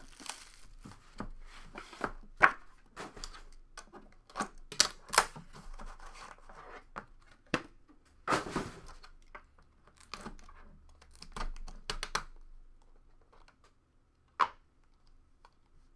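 Plastic shrink wrap crackling and tearing as hands strip it off a sealed trading-card box, mixed with light knocks and scrapes as the box is handled. The handling stops about twelve seconds in, then one sharp click is heard near the end as the box lid comes off.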